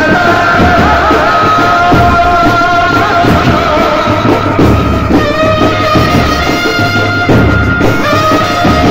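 Loud live Indian band music in Bollywood style: a long-held melody line over a heavy, regular drum beat, with a man singing into a microphone.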